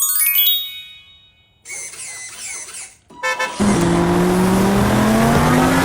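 A bright chime rings out and fades over the first second or so. From about three and a half seconds in, a car engine sound effect runs with its pitch rising steadily, over a loud rushing hiss like tyres on dirt.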